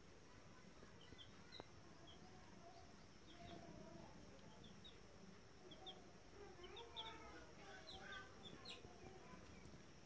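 Baby chicks peeping faintly: short, high peeps scattered throughout, coming more often from about six to nine seconds in, over a fainter lower murmur.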